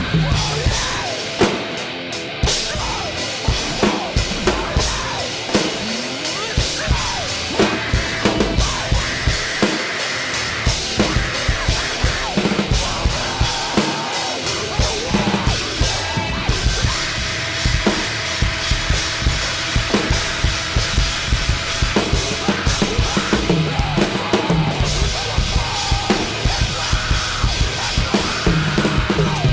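Acoustic drum kit with bronze cymbals played hard and busily: rapid kick, snare and cymbal hits, over a recorded rock song playing underneath.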